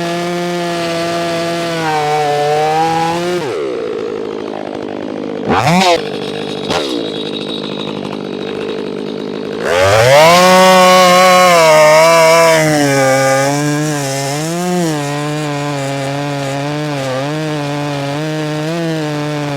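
Stihl 500i two-stroke chainsaw with a 28-inch bar cutting through a large log. The engine pitch sags under load and drops back about three and a half seconds in. There are two quick revs around six seconds, then it opens to full throttle near ten seconds and wavers as the chain bites into the wood.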